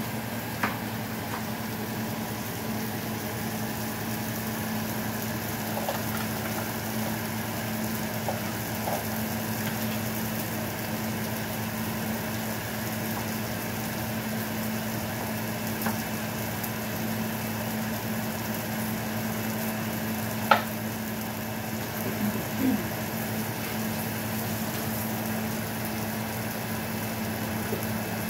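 Onion and tomato frying in a pan with a steady sizzle, over the steady hum of a kitchen range hood fan. A few sharp clicks of a utensil come through, the loudest about two-thirds of the way in.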